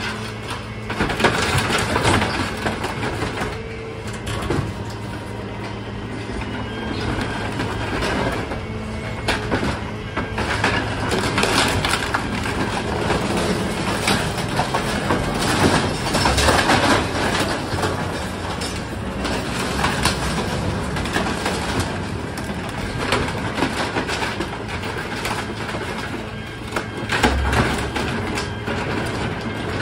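CrushR truck-mounted dumpster compactor at work: the truck's engine and hydraulics run with a steady hum while the toothed roller drum crushes wood, cardboard and scrap in the dumpster, with continual cracking and crunching that swells and eases as it works through the load.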